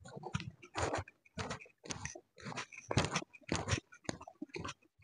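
Close-miked chewing and biting of a soft steamed chicken taipo dumpling, in short, regular mouth sounds about two to three a second.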